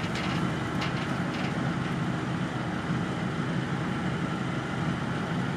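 A vehicle engine running steadily with a low rumble, with a few faint clicks in the first second and a half.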